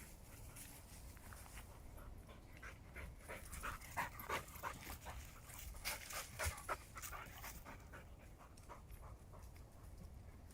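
A Sprocker spaniel panting in quick, uneven breaths, loudest in the middle few seconds.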